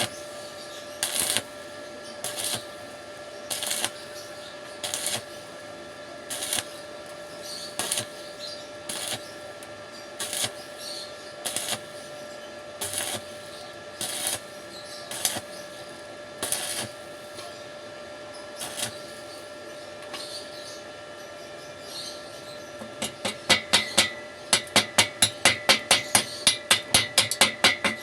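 Metal being struck with a hammer, a single ringing strike about every second and a half, quickening near the end to a fast run of several strikes a second, over a steady hum.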